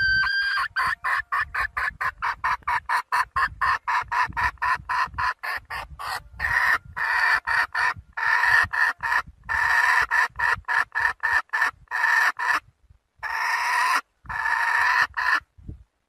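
Red junglefowl hen calling to a rooster as a lure call. A rising note leads into a fast run of clucks, several a second, that breaks near the end into two longer, drawn-out calls.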